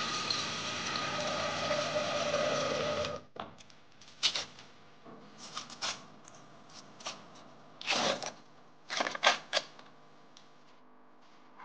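Kitchen work sounds: a steady rushing noise that cuts off suddenly about three seconds in, then scattered knocks and clatter of utensils and cookware.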